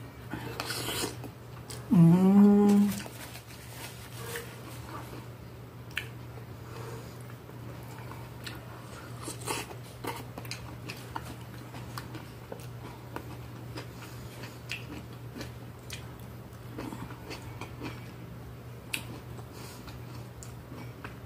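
Close-up eating sounds: chewing and soft mouth noises with small clicks of a fork, while a whole stewed maxixe is eaten. A short hummed "mm" about two seconds in, over a steady low hum.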